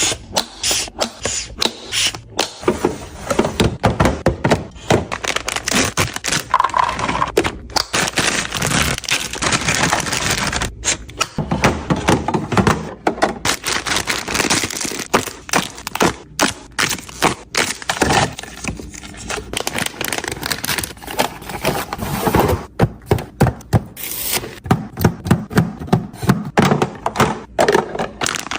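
Irregular clunks, clicks and scrapes of food containers and fridge shelves being handled, set down and slid into place.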